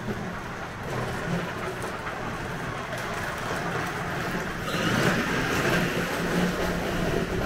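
Battery-powered kids' ride-on toy ATV driving across a concrete porch: electric motor and gear whine with hard plastic wheels rumbling on the concrete, getting louder about five seconds in as it comes close.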